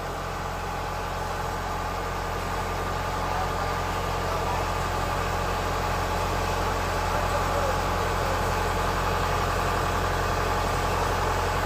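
Kubota DC-105X combine harvester's diesel engine idling steadily, its hum growing slightly louder over the stretch.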